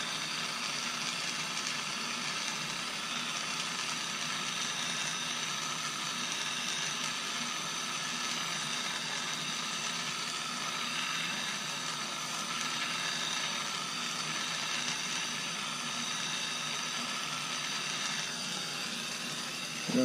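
Handheld gas soldering torch burning with a steady hiss as its flame heats sterling silver beads for soldering.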